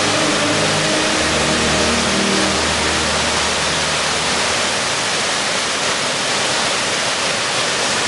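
Waterfall rushing steadily, an even, loud wash of falling water. In the first three seconds or so a few low held notes sound under it and then fade away.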